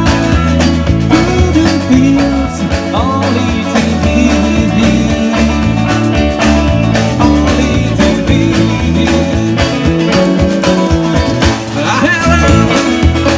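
A live rock band playing a country-style number, with guitar over bass and drums and a steady beat.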